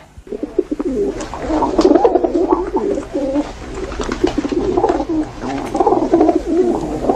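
A dense chorus of many overlapping bird calls, low and wavering in pitch, starting just after the beginning and going on without a break.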